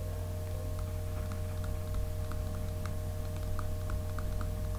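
Faint, scattered light taps and clicks of a stylus on a tablet during handwriting, over a steady electrical hum.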